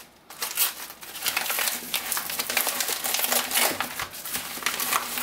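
A padded kraft-paper envelope lined with bubble wrap being torn open and worked apart by hand: after a brief pause, a dense, irregular run of paper tearing, rustling and crinkling.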